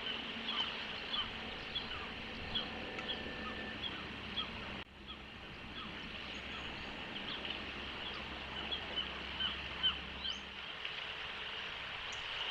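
Wild birds chirping, many short high chirps scattered irregularly, over a steady outdoor background hiss. There is a brief dip in the sound about five seconds in.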